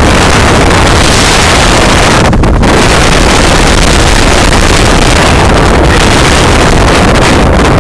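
Strong storm wind ahead of Hurricane Sandy blowing hard through the trees and buffeting the microphone, very loud throughout, easing for a moment about two and a half seconds in.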